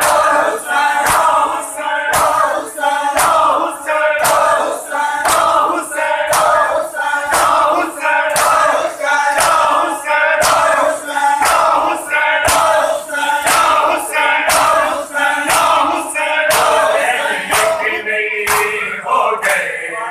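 Matam: a crowd of men beating their chests with open hands in a steady rhythm of loud slaps, while chanting a lament together in unison.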